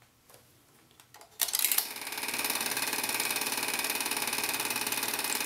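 Vintage reel-to-reel film projector starting up: a few faint clicks, then about a second and a half in a sudden louder start that settles into a steady, rapid clatter of the film mechanism running.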